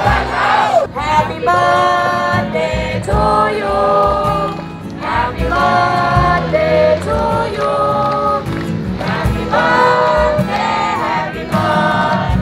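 A large group of people singing together in unison, with long held notes that step up and down in pitch.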